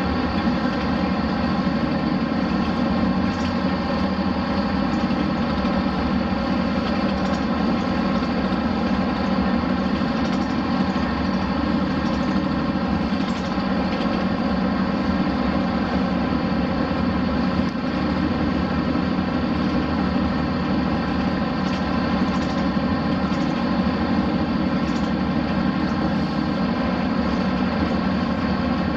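Diesel engine of a Hino Blue Ribbon RC monocoque bus running steadily at an unchanging pitch, heard from aboard the bus.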